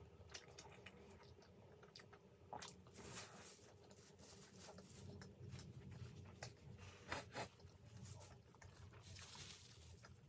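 Faint chewing and mouth sounds of someone eating vegetable momos (steamed dumplings), with scattered soft clicks and smacks.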